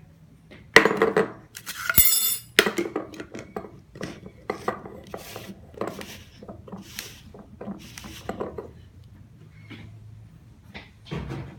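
Kitchenware being handled: dishes and utensils clattering and clinking, with a loud burst of clatter in the first few seconds, then lighter, irregular knocks and scrapes.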